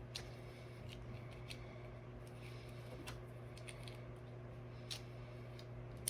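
Faint, scattered clicks of plastic building bricks being handled and pressed into place, about half a dozen over a steady low hum.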